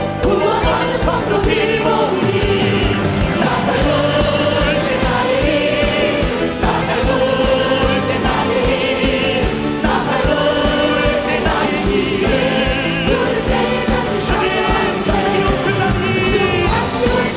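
Group of voices singing a Korean worship song with band accompaniment over a steady drum beat.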